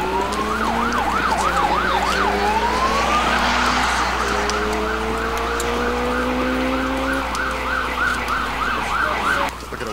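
Emergency vehicle sirens: one in a fast up-and-down yelp that speeds up about halfway through, over a slower rising wail lower down. The yelp cuts off near the end.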